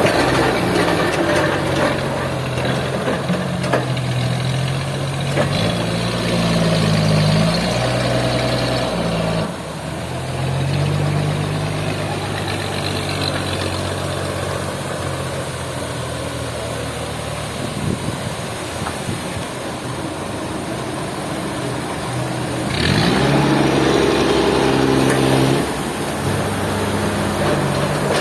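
An engine running under varying load, its pitch stepping up and down, with a sharp rev-up about 23 seconds in.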